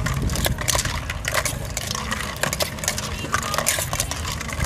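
Rapid, irregular clicking and clattering of food-prep utensils as yam salads are made, over a low rumble and background voices.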